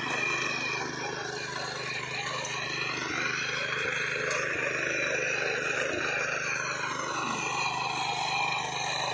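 Engine of a ploughing machine running steadily, its pitch rising and falling slowly.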